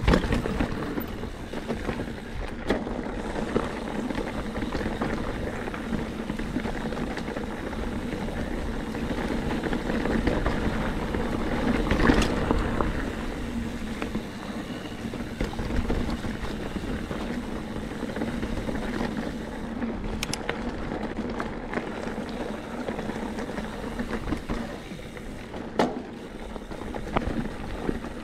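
Mountain bike ridden over a rocky trail: a steady rushing, rolling noise with scattered knocks and rattles as the tyres hit rocks, rougher and louder for a moment near the middle.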